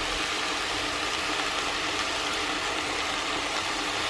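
Apple slices frying in butter and sugar in a nonstick pan, a steady sizzle, with a faint low hum underneath.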